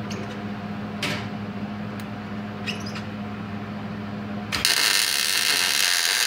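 Welding arc laying a tack weld on a steel frame: a loud, even hiss that starts suddenly about four and a half seconds in and lasts about two seconds, the weld made with the shielding gas on. Before it, a steady hum with a few sharp clicks.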